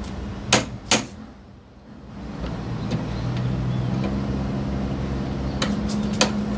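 Hammer striking a steel padlock on a truck's storage box to break it open: two sharp metal blows about half a second apart, then three quicker blows near the end. A vehicle engine runs steadily underneath, growing louder from about two seconds in.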